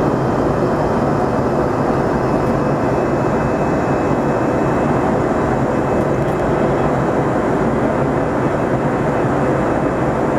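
Steady roar inside the cabin of an Airbus A320 climbing after takeoff: engine and airflow noise, with a few faint steady whining tones over it.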